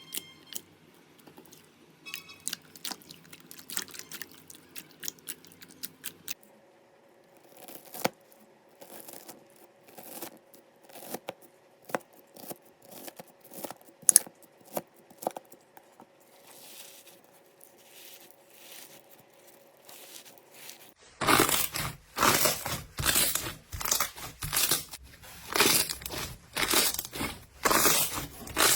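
Slime being pressed and squished: sparse crackles and pops, then, about two-thirds of the way in, loud crunching squeezes about two a second.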